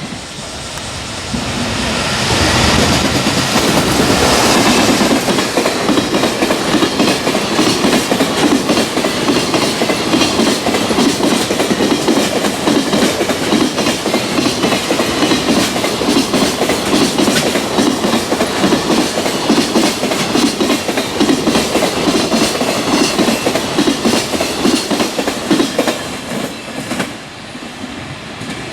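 Electric-hauled freight train passing close by. The locomotive's approach swells to a peak within the first few seconds, then a long string of freight wagons clatters over the rail joints in a rapid, steady rhythm, dropping away near the end.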